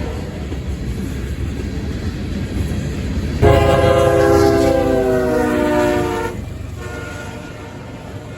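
Freight train rolling by with a steady rumble. About three and a half seconds in, a diesel locomotive's multi-chime air horn sounds loudly for about three seconds, its chord sagging slightly in pitch, then stops.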